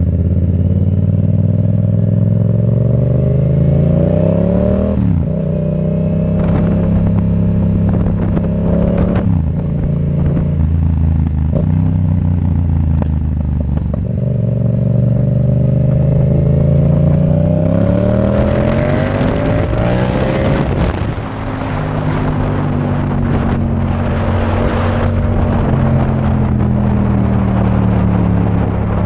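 Yamaha MT-07's parallel-twin engine through a Mivv Delta Race exhaust, heard from the rider's seat under way: revs climb and drop back through several upshifts in the first half. Past the middle it pulls harder with a rising rush of wind, then the revs fall away steadily as the bike rolls off and slows.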